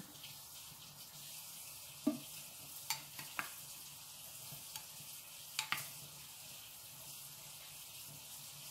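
A metal spoon stirring sliced onion in hot water and vinegar in a glass bowl, clinking sharply against the glass about five times, over a steady low hiss.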